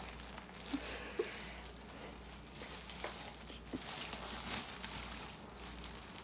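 Plastic bread bag crinkling and rustling as it is handled, with a few small clicks.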